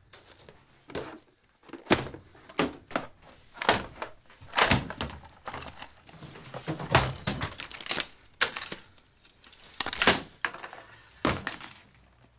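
Paper-wrapped parcels being handled and tossed aside: a string of irregular thuds and paper rustles.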